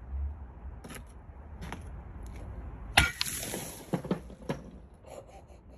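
A baseball bat smashes down on a block of ice about three seconds in: one sharp crack followed by a high ringing that fades over about two seconds. A few lighter knocks of ice chunks follow.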